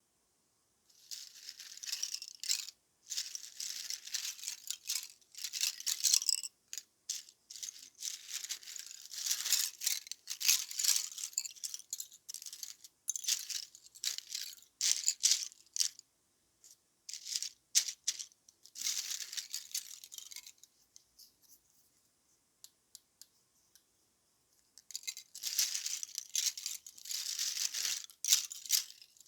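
Dry barley straw rustling and crackling in irregular bursts, mostly high and crisp, falling nearly quiet for a few seconds past the middle before picking up again.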